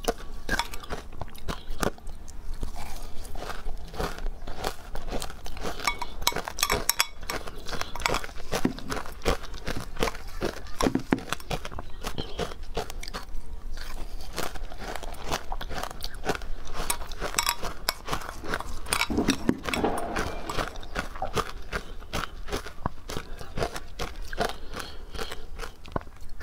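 Close-miked crunching and chewing of matcha-powdered ice, bitten off a spoon: a dense, continuous run of crackly crunches.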